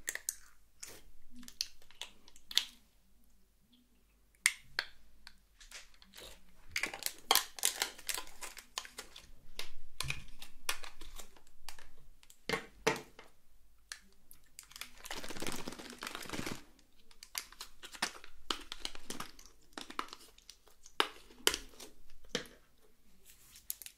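Long false nails clicking and tapping on a small hard plastic slime tub while stiff slime is pried out in pieces, in irregular sharp clicks with a longer crinkly rustle about halfway through.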